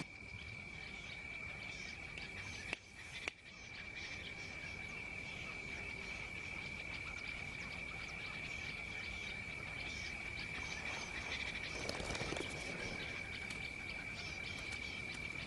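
Faint outdoor night-insect ambience: a steady high-pitched insect trill with scattered faint chirps and ticks over it. It briefly drops out about three seconds in.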